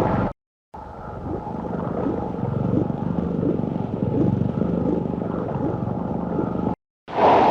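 Hedorah's Perfect Stage monster sound effect: a long, low, throbbing drone of about six seconds with faint regular pulses. It stops abruptly, and a short, louder burst of another effect follows near the end.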